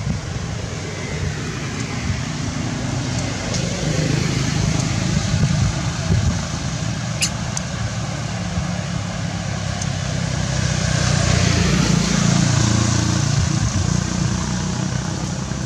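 Low, steady rumble of motor-vehicle traffic. It swells about four seconds in and again around eleven seconds, as vehicles pass. A single sharp click falls near the middle.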